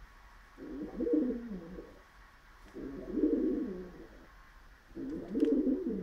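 Male pigeon cooing in courtship while mounting a dog's paw: three coo phrases about two seconds apart, each about a second long and dropping in pitch at the end.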